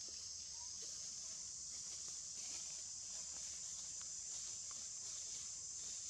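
Steady high-pitched insect chorus, a continuous shrill drone, with a few faint ticks.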